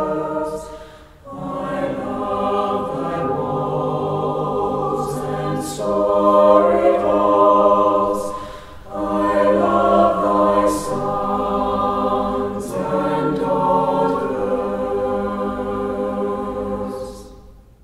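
A choir singing long, held chords in several phrases, with short breaks about a second in and around nine seconds, fading out at the end.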